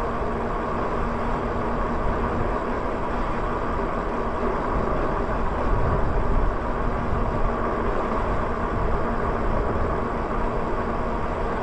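Lyric Graffiti e-bike riding along a paved street: a steady rush of wind on the microphone and tyre noise, with a faint steady hum underneath.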